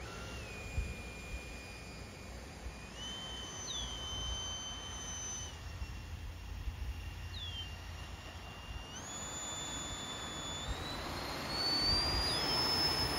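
Electric ducted fan of an RC hydroplane whining from a distance, its pitch stepping up and down several times, then climbing higher and getting louder near the end.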